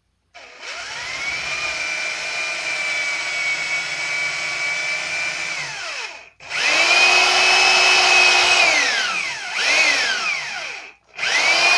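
Electric drill motor running in bursts. It gives a steady whine for about five seconds and winds down, then a louder run of about two seconds that also winds down, a short blip, and it starts up again near the end.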